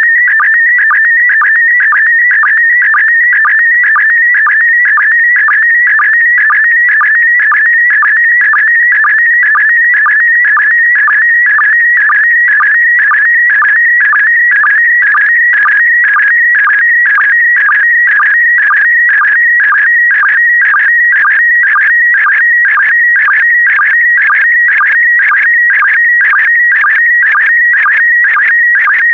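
PD120 slow-scan television (SSTV) image signal: a loud, steady, fast-warbling high tone that carries the picture line by line, broken by a short sync pulse about twice a second.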